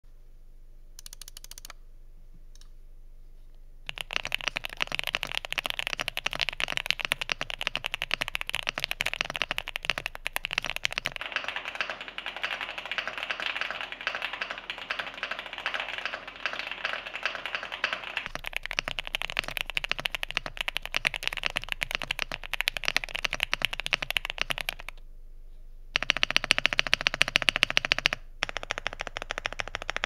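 Typing on a QK65 mechanical keyboard with lubed Gateron Oil King linear switches, an FR4 plate with PE foam, and double-shot ABS Cherry-profile keycaps. Fast, continuous keystrokes start about four seconds in and run on with a short pause near the end.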